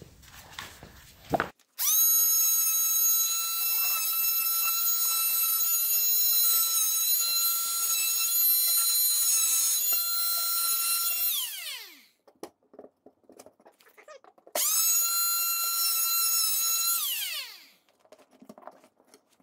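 Oscillating multi-tool cutting drywall at the corners of an access hole: a steady high whine for about ten seconds that winds down with falling pitch, then a second run of about three seconds that also winds down.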